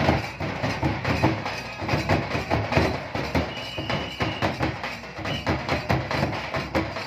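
Nagada (nagara) kettle drum on a woven basket stand and double-headed barrel drums beaten with sticks in a fast, dense folk dance rhythm. A short high steady tone sounds over the drumming about halfway through.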